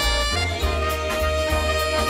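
Saxophone playing a Christmas-medley melody over a swing-style backing track with bass and drums, settling on one long held note about half a second in.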